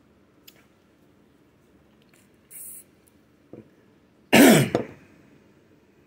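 A man coughing once, short and loud, with his voice dropping in pitch through it, about four seconds in. A faint click and a brief hiss come before it.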